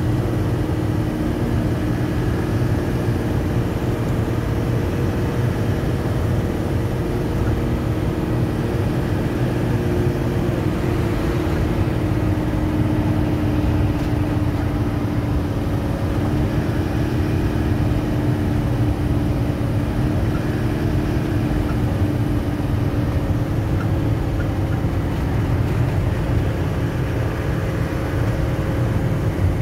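Engine and road noise heard inside the cabin of a vehicle cruising on a highway: a steady low drone with a constant hum and no changes in pace.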